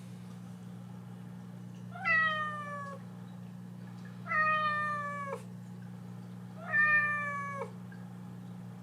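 Domestic cat meowing three times, each meow about a second long and falling slightly in pitch, over a steady low hum.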